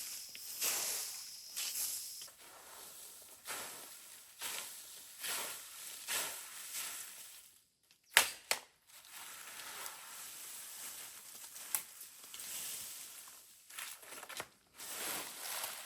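Irregular rustling and scraping, with two sharp cracks close together about eight seconds in, the loudest sounds here.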